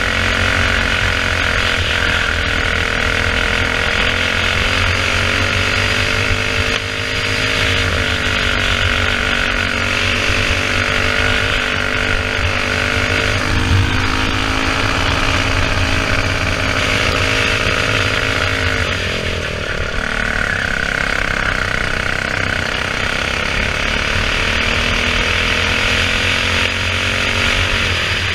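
Racing kart's single-cylinder four-stroke engine running hard through a lap, heard from onboard. The pitch climbs slowly along the straights and dips a few times as the throttle comes off for corners, most clearly about two-thirds of the way through and at the end.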